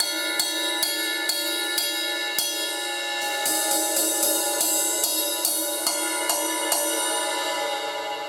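Paiste Signature Fast Crash 16-inch cymbal struck repeatedly with a stick, about two hits a second, its shimmering wash building up between strikes. It rings brighter and louder from about three and a half seconds in.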